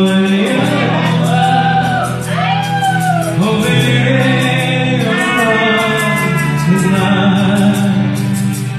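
A man singing karaoke into a microphone over a backing track, his voice holding long notes that bend up and down, amplified through the room's sound system.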